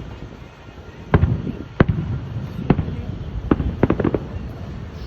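Aerial fireworks exploding: about seven sharp booms, the last few in quick succession, each trailing off in a low rumble.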